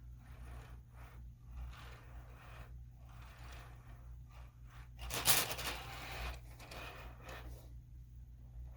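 Faint irregular scraping and rustling over a steady low electrical hum, louder for about a second some five seconds in.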